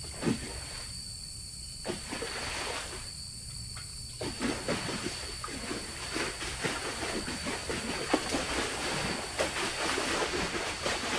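Night insects droning with a steady high whine, joined from about four seconds in by irregular rustling and scraping close by, as of the tent fabric being handled.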